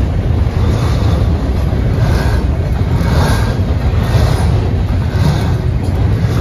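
Double-stack container train's well cars rolling past on steel wheels: a steady, loud, deep rumble with a brighter clatter about once a second as the wheels pass.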